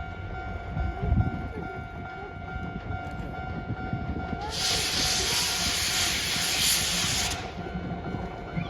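JNR Class C58 steam locomotive passing with a steady low rumble. About halfway through, a loud hiss of released steam runs for about three seconds and cuts off sharply. Under it a level-crossing warning signal sounds a steady two-tone ring.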